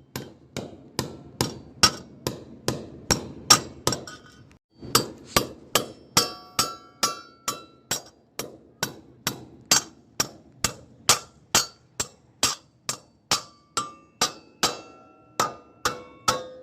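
Steady hammer blows, about two a second, with a short pause a little after four seconds; some strikes leave a brief metallic ring.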